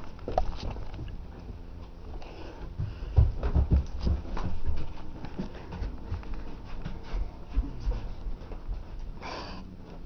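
Handheld camcorder handling noise: irregular low bumps, rubbing and clicks as the camera is swung and jostled, heaviest a few seconds in. A short breathy hiss comes near the end.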